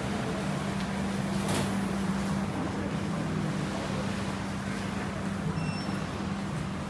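Steady low hum over a wash of background noise, the ambience of a large open-sided building, with a short tick about one and a half seconds in.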